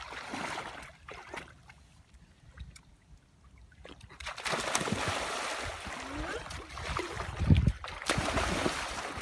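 Splashing and sloshing of shallow water as a boy throws himself backward into it. The first few seconds are quieter, and the biggest splash comes about three quarters of the way through.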